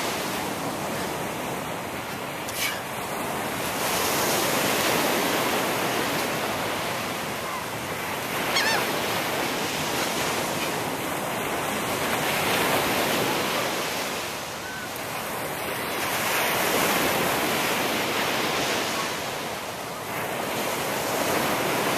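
Ocean surf breaking on a sandy beach: a steady wash of noise that swells and eases every few seconds, with two brief clicks, one early and one about a third of the way in.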